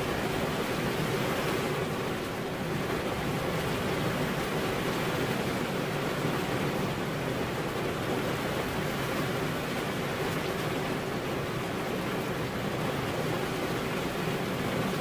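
Steady heavy rain: a dense, even hiss of falling water with no breaks or separate drops standing out.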